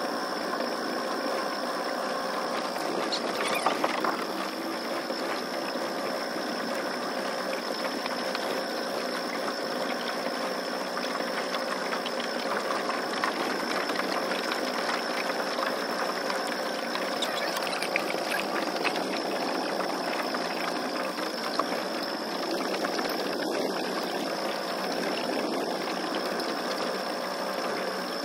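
Boat motor running steadily with a high, even buzz that sounds like a fly.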